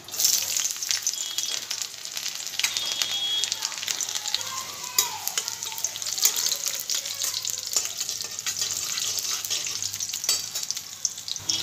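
Chopped garlic sizzling in hot oil in a metal wok (kadai), starting abruptly as it goes into the oil, with a spatula clicking and scraping against the pan as it is stirred.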